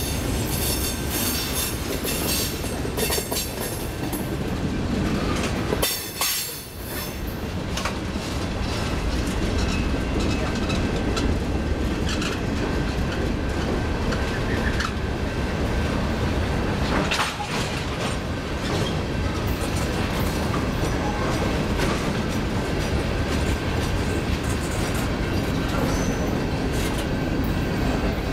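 A freight train's cars rolling past. Steel wheels rumble and clack over the rail joints, and a thin, steady wheel squeal runs through it. The sound dips briefly about six seconds in.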